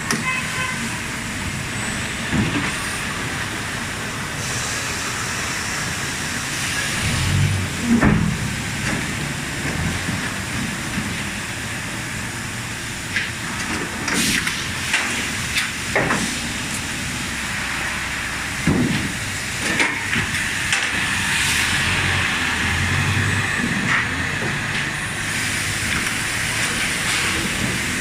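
Industrial thermoforming machinery running: a steady hiss with scattered knocks, the hiss growing stronger about two-thirds of the way through.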